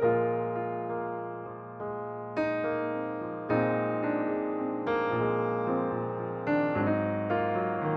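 Background music: slow piano or electric piano, chords struck about once a second, each ringing out and fading.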